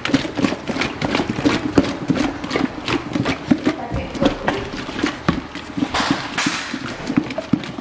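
Steak and marinade being shaken in a lidded plastic food-storage container: quick, irregular knocks of the meat against the plastic with liquid sloshing, and a bigger slosh about six seconds in.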